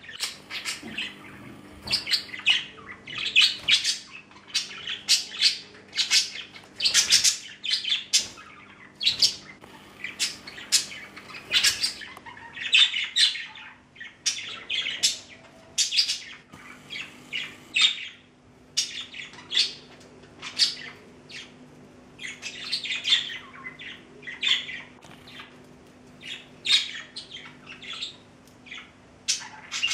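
Two pet budgerigars chattering: a continuous run of short, high chirps and warbling calls, one after another with only brief gaps.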